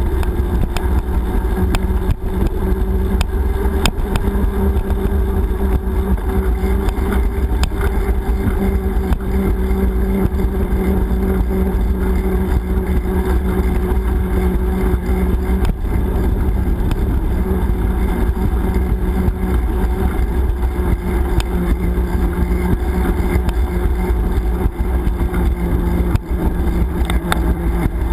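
Wind noise on a GoPro's microphone during a bicycle ride, with a steady low hum and scattered small clicks and knocks from the moving bike.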